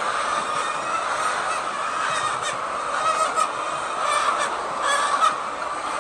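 A large flock of hens in a poultry shed, a dense, continuous din of clucking and squawking, with a few sharper sounds standing out between about two and five seconds in.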